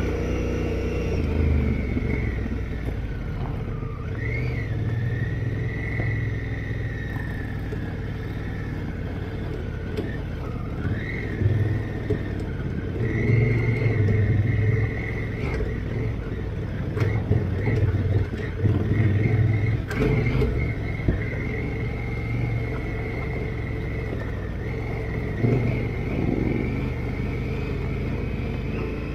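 Big adventure motorcycle riding on a gravel track, its engine note rising and falling with the throttle under heavy wind noise on a helmet-mounted camera. A few sharp ticks, like stones hitting the bike, come through.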